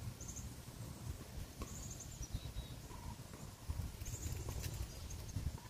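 Faint outdoor ambience: wind rumbling unevenly on the microphone, with short, high chirps from birds every second or two.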